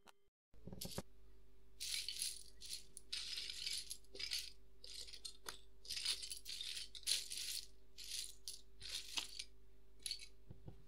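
Loose plastic Lego bricks rattling and clattering as hands rummage through and handle them, in many short rustling bursts. It starts about half a second in, over a faint steady hum.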